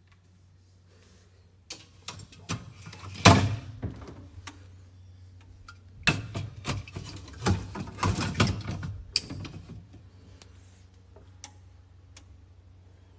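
Knocks and clatters of a plastic and metal can organizer being handled, with a sharp knock about three seconds in and a busier run of knocks from about six to nine seconds, over a low steady hum.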